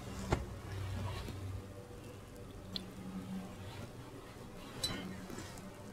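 Quiet church room tone with a low hum fading out in the first second or so, a sharp click shortly after the start and a few faint ticks later, like small handling noises at the altar.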